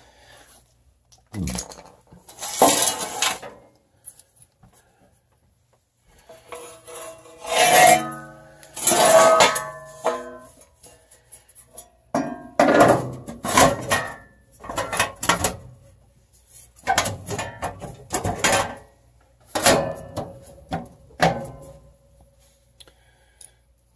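Pellet stove's sheet-metal panel clattering and scraping as it is handled and fitted back into place: irregular metallic knocks and rattles in bunches, some ringing briefly.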